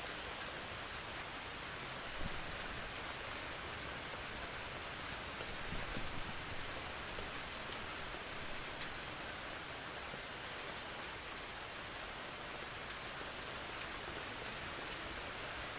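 Steady rain falling, an even hiss with a patter of drops, with two short louder swells in the low end about two and six seconds in.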